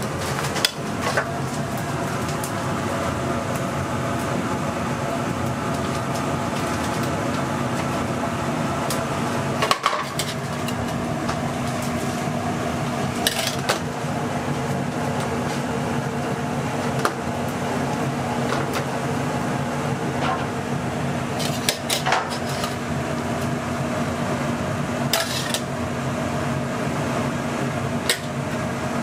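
Kitchen background: a steady machine hum with a handful of sharp clinks and knocks of metal utensils and dishes scattered through it.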